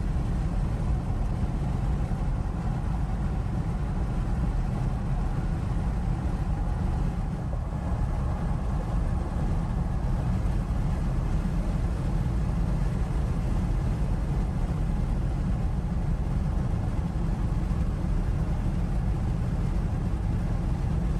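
Steady road and engine noise heard from inside a moving vehicle's cabin: a constant low rumble that does not change.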